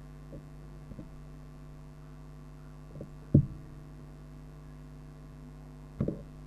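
Steady electrical mains hum on the microphone and sound-system line, with a few short low thumps from the handheld microphone, the loudest a little past three seconds in and another about six seconds in.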